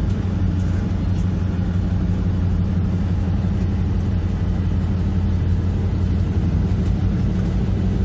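Steady engine and road noise of a vehicle driving at moderate speed, heard from inside the cab, with a constant low hum.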